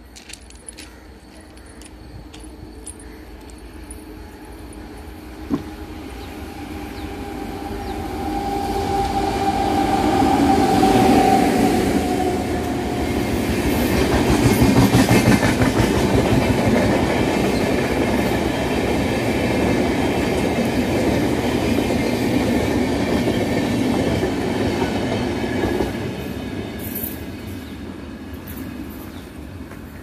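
WAP-7 electric locomotive hauling LHB coaches approaches and passes at speed, sounding its horn in one long continuous note that dips in pitch as it ends. Then the steady rumble and clickety-clack of the coaches' wheels over the rails, dying away near the end.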